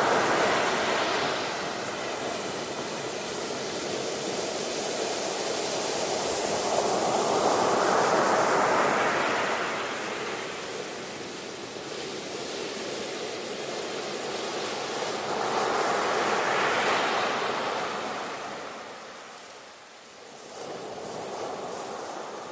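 Ocean waves breaking and washing on a shore, in slow swells that peak about every nine seconds and ebb between.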